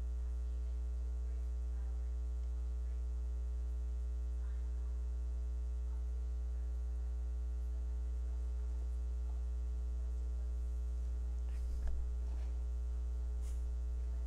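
Steady electrical mains hum on the audio feed: a low buzz with a ladder of evenly spaced overtones, and a soft bump near the end.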